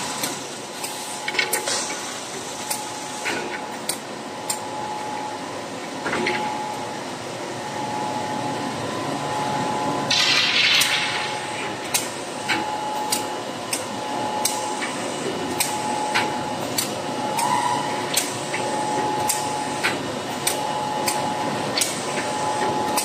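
Broom handle production line running: the chain conveyor and its machinery hum steadily while wooden sticks give frequent sharp clicks and knocks, with a faint tone pulsing on and off at a regular pace. About ten seconds in there is a loud hiss lasting roughly a second.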